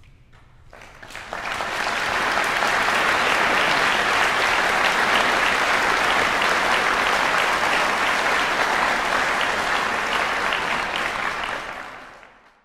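Concert hall audience applauding: a few claps about a second in swell quickly into full, steady applause, which fades away near the end.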